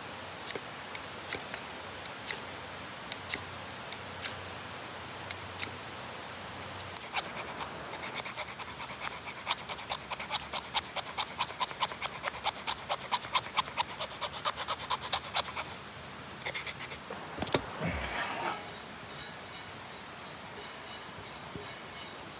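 A Gerber knife blade scraping a small wooden stick, shaving fine wood dust off it in quick strokes, about four or five a second through the middle, slower later. Scattered single clicks come in the first few seconds, and there is one sharp knock near the end.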